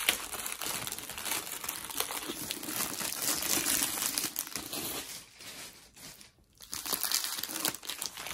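Clear plastic wrap crinkling and crackling as hands pull it off a rolled canvas tube, with a short pause a little past the middle.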